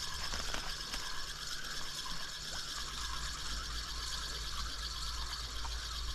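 Fishing reel being wound in steadily, its gears and rotor giving a continuous fine ticking whirr as a small fish on the line is retrieved.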